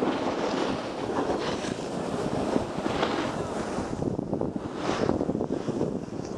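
Wind buffeting a Contour Roam II action camera's microphone while riding down a groomed snow run, with the hiss and scrape of edges carving packed snow swelling every second or two.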